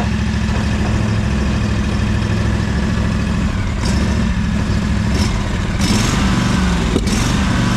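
Engine of a new lawn mower running steadily; its note wavers and dips briefly past the halfway point, with a few short hissing noises and a sharp click near the end. The mower is behaving as if the deck is engaged when the brake is set, a sign of a safety interlock switch being tripped.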